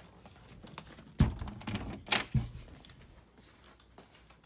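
Handling knocks: three sharp knocks, about a second in and twice more close together about two seconds in, with light rustling between them, as things in a firework stash are moved and set down.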